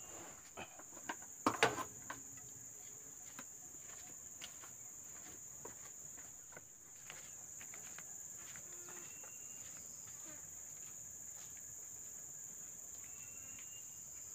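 Steady high-pitched drone of insects, crickets or cicadas, running on without a break. A cluster of sharp knocks about a second and a half in is the loudest moment, and light clicks and footsteps follow as someone handles a bucket and walks off.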